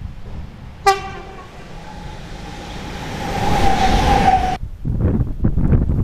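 Class 186 TRAXX electric locomotive sounding a short horn toot about a second in, then a long tone that grows steadily louder as it approaches. Near the end, the low rumble and clatter of a passing train.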